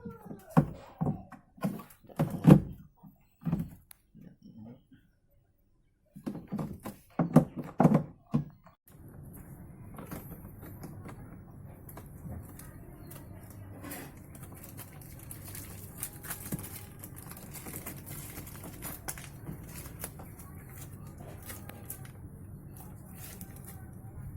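A series of sharp knocks and thunks, like parts being handled during a washing machine repair. After a brief cut, a steady low hum with light clicking.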